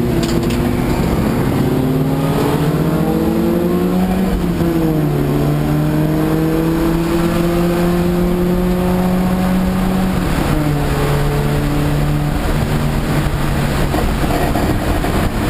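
1987 Audi 4000S race car's engine running hard under load, heard from inside the stripped cabin along with road and wind noise. The engine note climbs slowly, then drops sharply about four seconds in and again about ten seconds in.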